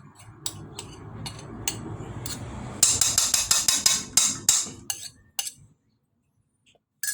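Sharp metallic clicks and knocks over a low rumble, coming fastest and loudest in a rapid run about three seconds in.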